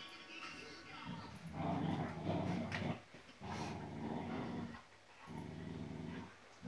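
Old English Sheepdog puppies growling in play as they tussle, in three long low growls with short breaks between them.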